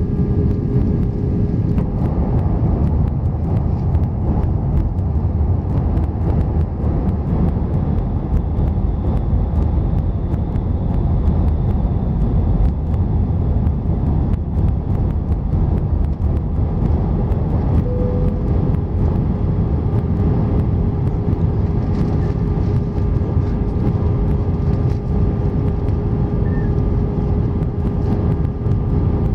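Airbus A320 cabin noise during the arrival descent, heard by the over-wing window: a steady, deep rumble of jet engines and airflow past the fuselage, with a faint steady hum that becomes more marked a little over halfway through.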